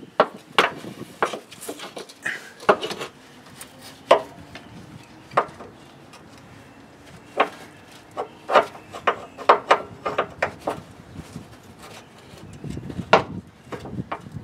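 Irregular sharp metal clicks and knocks from hand tools and gloved hands working at the upper mount of a truck's rear shock absorber, some coming in quick clusters.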